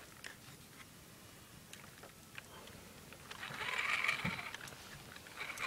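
Micro RC crawler's small electric motor and gear drive whirring in a short burst about three seconds in, with a second burst starting near the end, over a few faint clicks.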